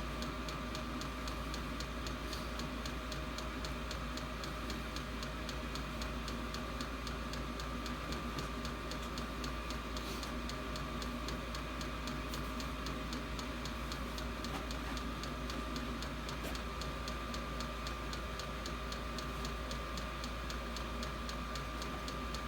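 An 8 kW 12 V all-in-one diesel heater running: a steady whir with a thin steady tone, and its fuel dosing pump ticking at an even rate.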